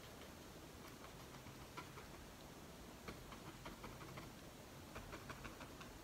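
Faint, scattered light ticks and taps, a few small hard contacts at irregular moments, over quiet room tone.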